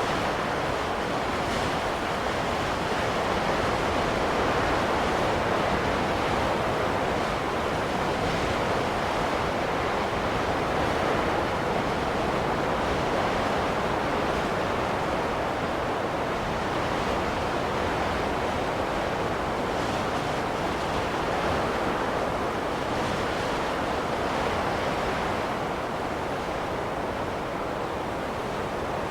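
Steady rushing wind of a snowstorm ambience, an even noise with no distinct gusts or swells.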